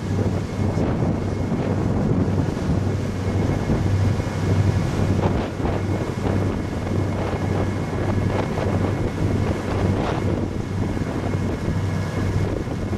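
Wind buffeting the microphone over the steady low drone of a boat's engine.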